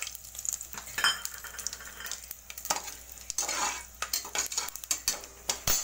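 Whole spices sizzling in hot oil in an aluminium pressure cooker while a slotted spoon stirs them, scraping and clicking against the pot's bottom and sides. A sharp knock near the end.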